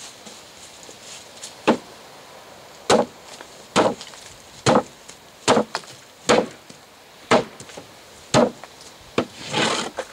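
A big hammer smashing apples laid in a row on a wooden bench: about eight hard blows, roughly one a second, each one also knocking the bench top. A lighter hit and a short, longer rush of noise come near the end.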